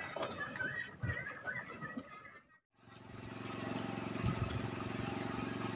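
Boat engine running steadily with an even hum, heard from aboard the moving boat, starting after a short silent gap about two and a half seconds in. Before the gap there are faint clicks and chirping sounds.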